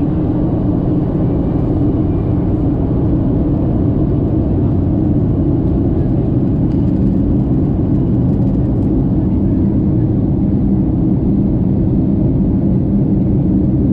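Steady cabin noise of a jet airliner in flight, heard from inside the cabin: an even, low rumble of the engines and airflow that does not change.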